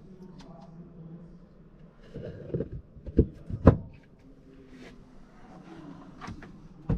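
Lid of a camper van floor storage hatch being handled and shut: a few knocks and clicks, the two loudest about half a second apart roughly three seconds in.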